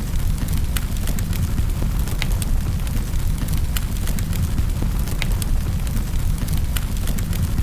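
Wood fire crackling in a fireplace: a steady low rumble of flames with frequent sharp snaps and pops scattered irregularly throughout.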